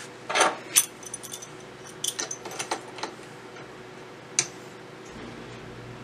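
Small metal hand tool being handled on the printer's hotend: a few light metallic clinks and clicks in short clusters, with one sharp click a little past four seconds.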